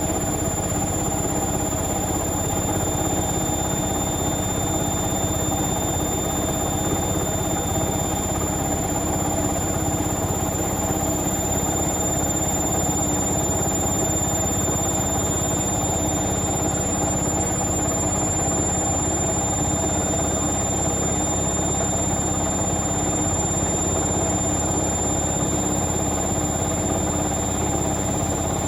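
Indesit Moon SIXL145 washing machine in its final spin, the drum turning at a steady high speed. A steady high-pitched squeal comes from the rubber door seal rubbing as the drum spins.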